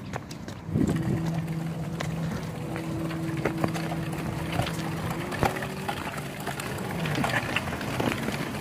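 Plastic tricycle wheels rolling over paving stones, with scattered clicks and rattles. A steady low hum starts about a second in and stops about seven seconds in.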